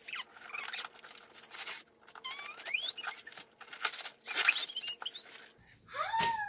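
Gift wrapping paper being torn and rustled, with short bursts of crinkling. A child's excited squeals rise in pitch, and near the end there is a longer rising squeal.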